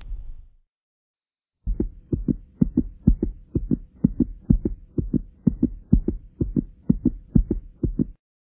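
A low rumble fades out at the start; after about a second of silence comes a steady run of low double thumps, about two pairs a second, like a fast heartbeat sound effect, stopping near the end.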